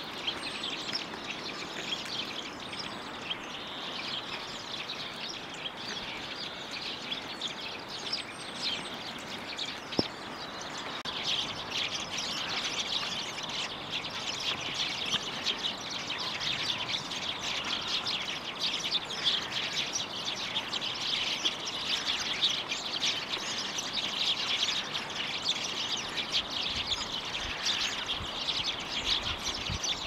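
Many small songbirds chirping together in a dense, continuous chatter that grows busier about a third of the way in, with one sharp click at about the same point.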